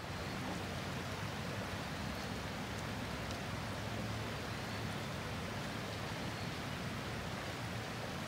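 Shallow creek water running steadily over rock ledges and riffles, a constant even rush.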